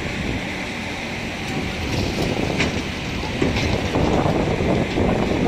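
Wind buffeting the microphone over the low, steady rumble of heavy machinery, with a few sharp clicks. The buffeting grows louder about three and a half seconds in.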